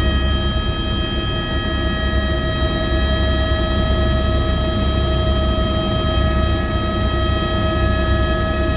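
Helicopter running, heard from the cabin: a steady, loud engine whine of several fixed high tones over a low, churning drone from the rotor and airframe.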